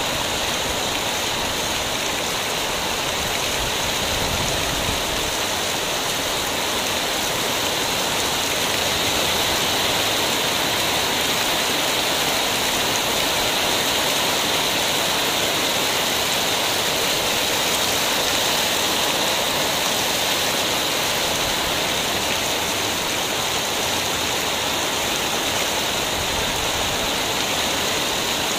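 Heavy rain pouring down, a dense, steady rush that holds even throughout.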